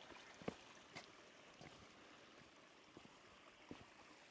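Near silence: a faint, steady rush of flowing water from the waterfall stream, with a few soft knocks.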